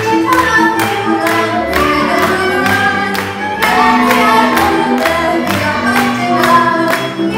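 Hungarian folk music for a Sárköz dance: a group of voices singing a folk melody over a steady, even beat.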